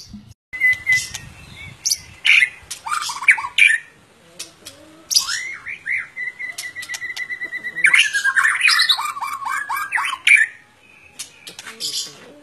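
White-rumped shama singing a varied song of loud whistled notes and slurs, with sharp clicking notes in between. Around the middle comes a long, even, rapid trill, then a busy run of falling notes. It goes quieter near the end.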